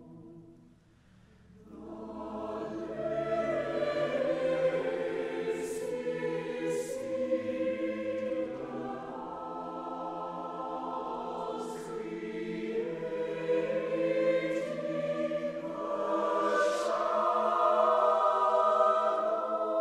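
Mixed chamber choir singing sustained chords in a reverberant church. The voices come in about two seconds in after a brief lull and swell louder toward the end, with sung "s" sounds standing out as short hisses.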